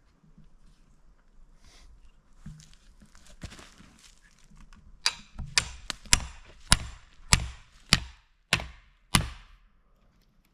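About nine heavy blows of a striking tool on wood, following one another about every half second. They begin about halfway in and stop near the end.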